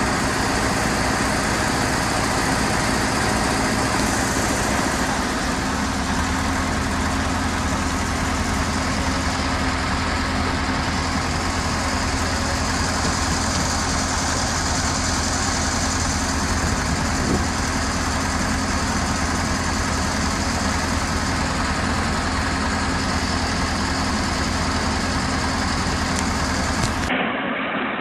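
Excavator diesel engine running steadily, a constant low drone with a steady hum over it.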